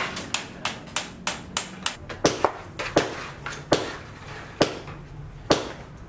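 Hand hammer striking repeatedly on a building site: sharp, ringing blows about three a second, spacing out a little toward the end.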